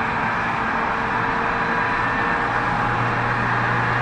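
Tobu 30000 series electric train running: a steady rumble with a few constant whining tones, and a low hum that grows stronger about halfway through.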